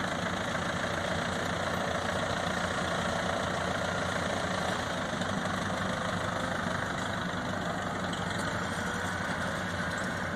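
Backhoe engine running steadily at a low, even idle.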